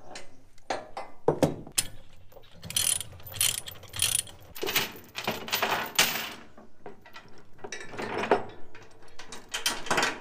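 Tie-downs being undone on a flatbed trailer: a ratchet strap's handle clicking through its pawl as the strap is released, then a steel tie-down chain rattling and clanking as it is lifted off the deck. Uneven clicks and short metallic rattles.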